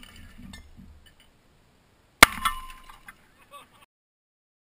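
A single shotgun blast about two seconds in, the shot smashing glass bottles, followed by glass fragments tinkling and clinking down for about a second and a half. The sound then cuts off suddenly. Before the blast, debris from a previous shot is still settling.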